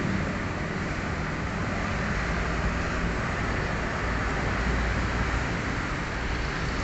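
Steady background noise: a low rumble with a hiss, even throughout, with no distinct clicks or knocks.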